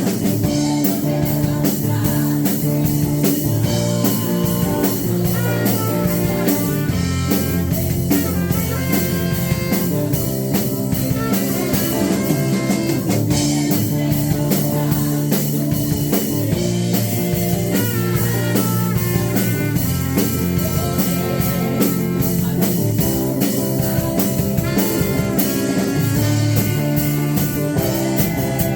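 Live worship band playing a steady song with drum kit and electric guitar.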